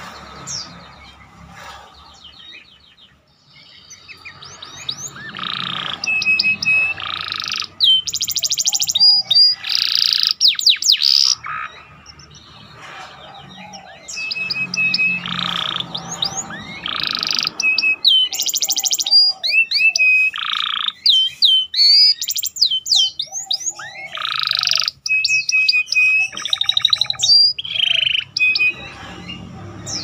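Domestic canary singing a long, fast, varied song in extended bursts with short pauses: rapid rolling trills, sweeping whistles and high buzzy rattles, its song filled with phrases copied from the bar-winged prinia (ciblek).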